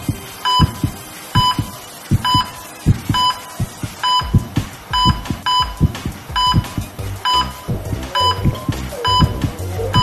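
Electronic monitor beeps, one short tone repeating a little more than once a second, over music with a deep thumping beat.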